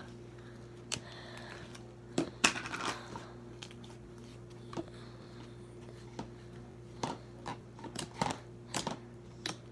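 Thick white slime being squeezed and poked with the fingers: scattered sticky clicks and small pops, coming faster about seven seconds in, over a faint steady hum.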